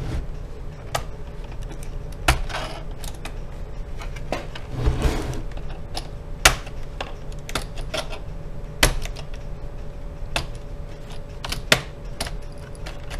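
Plastic snap clips on an Acer Aspire E15 laptop's bottom case clicking loose as a thin pry tool is worked around the seam, with a sharp click every second or two and brief scrapes of plastic on plastic.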